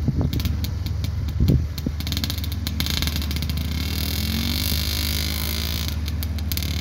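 Steady low engine drone of a small propeller plane climbing away in the distance after takeoff, with a few clicks scattered through it.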